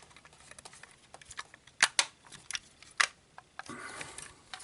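Plastic model engine parts being handled and fitted together: a few sharp clicks and knocks, the loudest about two and three seconds in, with brief rustling near the end.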